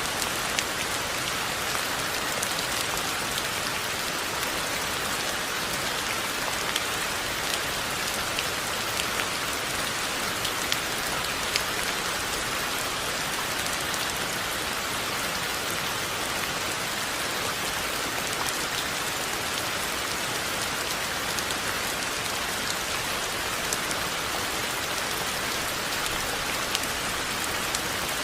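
Steady rain falling, a constant hiss with many individual drops ticking and pattering on surfaces throughout.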